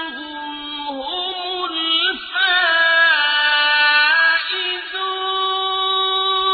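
Quran recitation in Arabic: one voice chanting a verse in a melodic tajweed style, with long held notes and ornamented turns between pitches.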